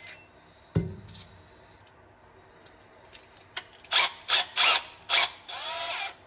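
Shop tool work on steel plate: a single knock about a second in, then several short scraping strokes, and a brief whir of a power drill near the end.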